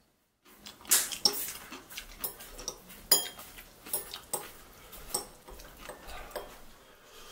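Metal chopsticks clicking and scraping against a ceramic bowl while picking up noodles. The sharp, irregular clicks start about half a second in and come once or twice a second.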